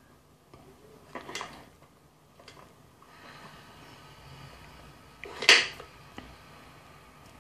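Light handling noise of multimeter probes and wires being held against the mixer grinder's wire terminals, with two short sharp scrapes: a softer one just over a second in and a much louder one about five and a half seconds in.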